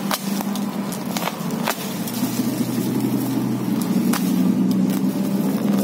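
Black plastic parcel wrapping crinkling and snapping as a utility knife cuts through the packing tape, with sharp clicks scattered through. A steady low hum runs underneath.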